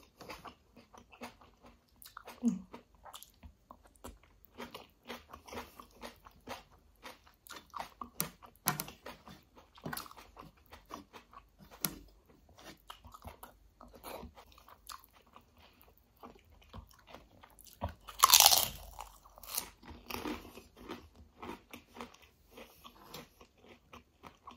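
Close-miked chewing and crunching: a person eating rice and kadhi by hand, with many small crunching clicks of bites and chews. One much louder, longer noise comes about three-quarters of the way through.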